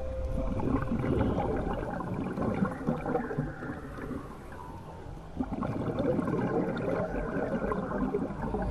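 Underwater bubbling and gurgling of scuba exhaust bubbles leaving a regulator. It dips to a quieter pause about four seconds in, then bubbles again.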